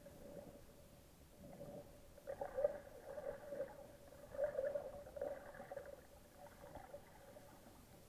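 Faint, muffled underwater sound picked up by an action camera in its waterproof housing in shallow sea: a steady hum, with two stretches of crackling water noise a few seconds in.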